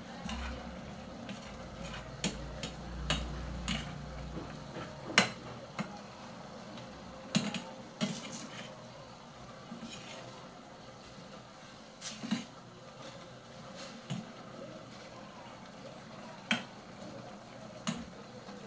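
Long metal spoon stirring pork adobo in a stainless steel saucepan, giving irregular clinks and knocks against the pot over a steady simmering hiss.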